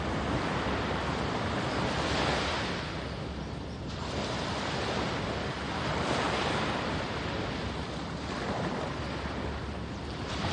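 Ocean waves breaking and washing onto a sandy beach, the surf swelling and ebbing every few seconds, with some wind on the microphone.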